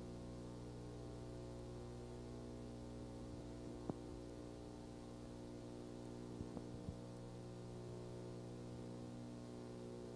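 Faint steady electrical hum with no site sound, broken only by a small tick about four seconds in and a few more around seven seconds.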